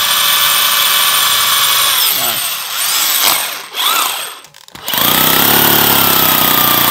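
Cordless hammer drill running unloaded in normal drill mode with a steady high motor whine. It winds down about two seconds in and gives two short spurts of the trigger. It spins back up to full speed about five seconds in.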